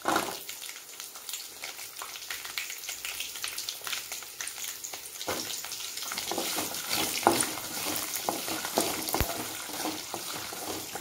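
Shallots frying in hot sesame oil with dried red chillies and coriander seeds in a kadai, sizzling and crackling steadily. From about halfway, a spatula stirs and scrapes against the pan.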